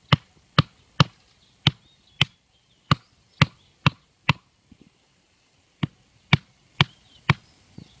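A hatchet knocking on the top of a bamboo stake, driving it into the ground, in sharp, evenly paced blows about two a second. About nine blows, a pause of a second and a half, then four more.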